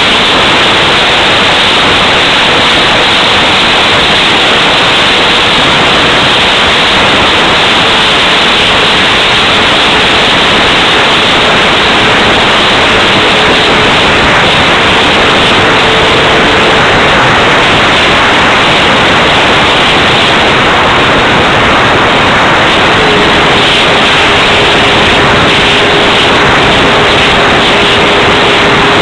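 Strong wind blasting the microphone: a loud, steady rushing hiss. A faint steady hum sits underneath, shifting slightly in pitch a few times.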